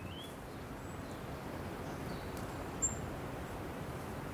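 Outdoor rural ambience: a steady low background rush with a few short, high bird chirps, and one sharp high note about three seconds in.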